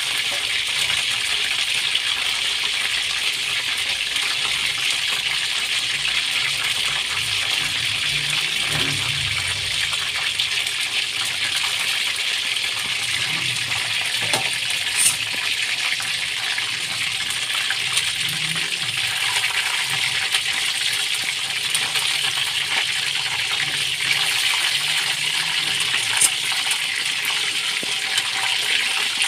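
Chicken pieces deep-frying in hot oil in a wok: a steady sizzle with a few sharp pops.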